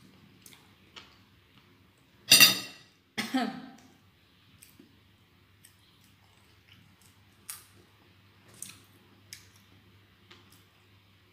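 A person eating French fries, with soft chewing and small mouth clicks, broken a little over two seconds in by two loud coughs close together, the second falling in pitch like a throat-clearing.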